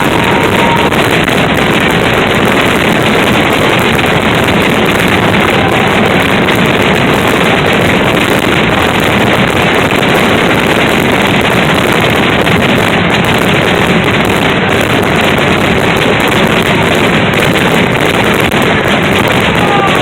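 Fireworks going off in a dense, rapid barrage, the bangs and crackles running together into one steady loud noise.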